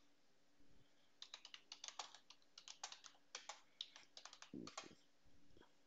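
Faint typing on a computer keyboard: an irregular run of quick keystrokes starting about a second in.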